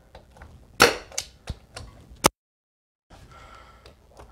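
Pneumatic nail gun firing nails into a stair riser to fasten it to the step: one loud sharp shot about a second in, then several lighter clicks, and another shot at the very end.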